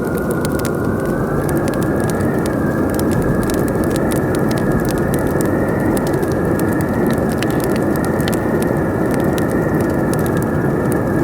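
Wood fire crackling, with frequent sharp pops, over loud, steady howling wind. The wind carries a high whistling tone that wavers slowly up and down.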